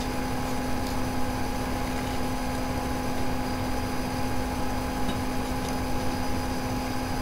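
Steady background hum with a low droning tone over a faint hiss, broken only by a few faint ticks.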